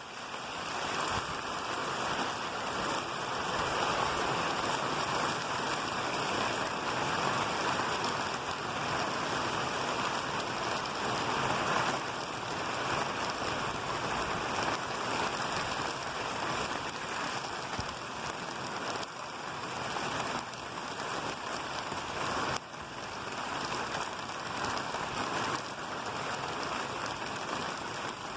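Steady rain falling, an even hiss of many drops that holds at much the same level throughout.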